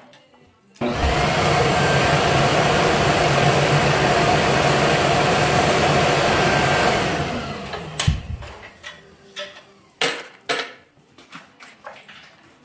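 An electric workshop machine switches on abruptly, runs with a loud, steady whir for about six seconds, then winds down. Light clicks and knocks of handled tools follow.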